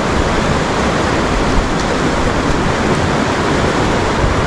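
Steady rushing of boiling geyser water, one even noise that does not break or change.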